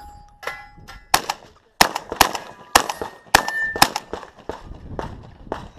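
A shotgun firing a rapid string of about six shots, roughly half a second apart, at steel targets. Some hits leave the steel briefly ringing. Lighter knocks follow near the end.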